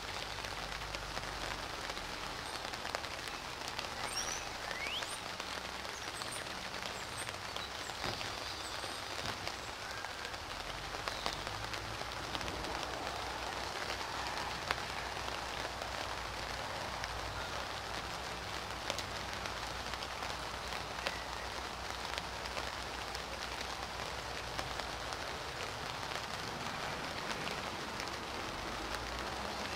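Steady rain falling: an even hiss with scattered drip ticks.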